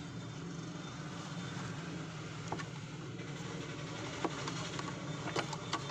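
A few sharp plastic clicks and snaps as a screwdriver pries apart the clipped-together plastic casing of an Orpat blower room heater, mostly in the second half, over a steady background hum.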